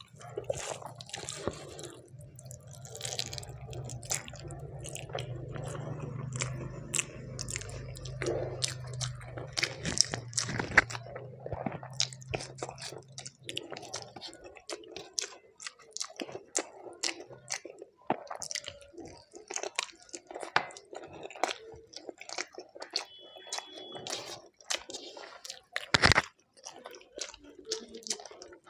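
Close-up chewing and biting of a person eating, with many short wet mouth clicks and smacks and an occasional crunch. A low steady hum sits under the first half and stops about halfway through; one sharp loud click comes near the end.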